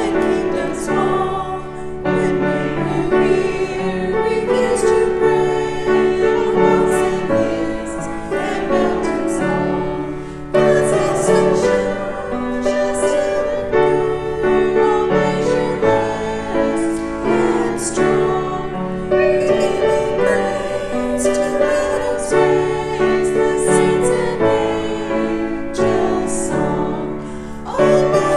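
A hymn sung by voices with piano accompaniment, continuous and steady in level.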